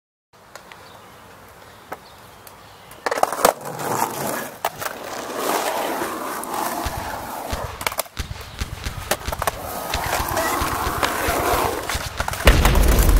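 Skateboard wheels rolling over concrete, with repeated sharp clacks of the board. A loud, deep rumble comes in near the end.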